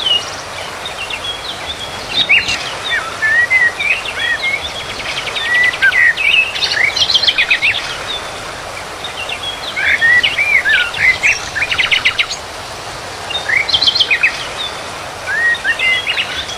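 Small birds chirping and trilling: short rising and falling whistled notes, broken by quick rattling trills, over a steady outdoor hiss.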